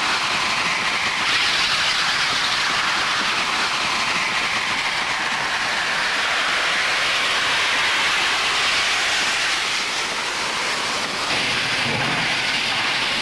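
Steam train sound effect: a steady hiss that cuts off sharply at the end.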